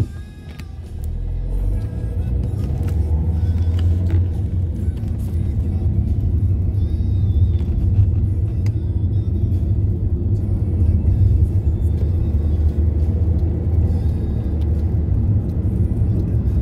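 Car engine and road rumble heard from inside the cabin as the car pulls away and drives on, a steady low rumble that grows louder within the first two seconds and then holds.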